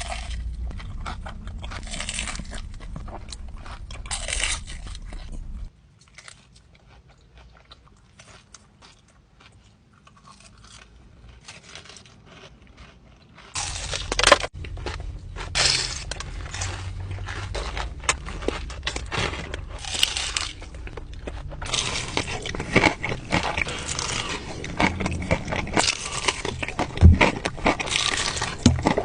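Close-up eating sounds of crunchy fried chicken: the crackling batter bitten and chewed, crunch after crunch. The crunching goes quieter and sparser for several seconds about a quarter of the way in, then comes back louder and denser to the end.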